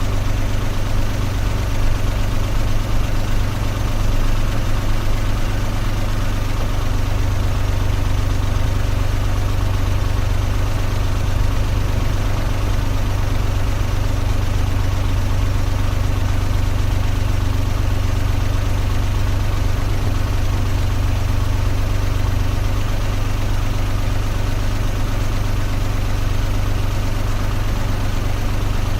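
Car engine running steadily with an even low hum, no revving or change in pitch.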